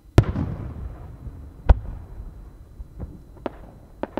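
Aerial firework shells bursting. A loud boom comes just after the start and rolls on in a long rumbling echo, a second loud report follows about a second and a half later, and several smaller pops come near the end.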